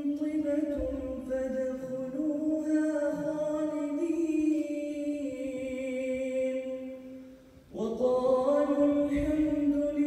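A man reciting the Qur'an in the melodic, chanted tajwīd style, drawing out one long phrase with slowly wavering held notes. About seven and a half seconds in he breaks briefly for breath, then starts the next verse.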